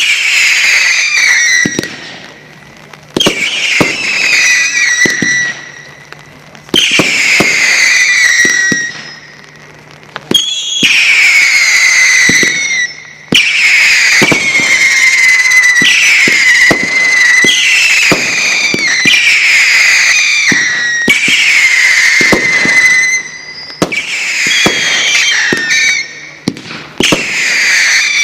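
Wolff Ammo Crate firework battery firing shot after shot. Each shot gives a whistle that falls in pitch over about two seconds, some overlapping, with sharp bangs throughout.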